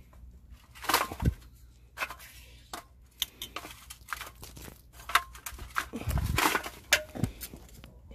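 A steel bowl of charcoal briquettes knocking and scraping against the inside of an earthenware crock as it is lowered in, with light clinks of metal tongs. Louder clatters come about a second in and again around six seconds in.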